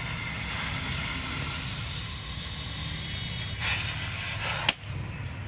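Electric arc welding on a steel bumper panel: the weld arc makes a steady crackling hiss, which cuts off suddenly near the end.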